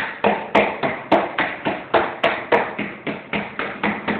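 Hands slapping and patting a ball of bread dough flat against a work table, a quick even rhythm of about four slaps a second.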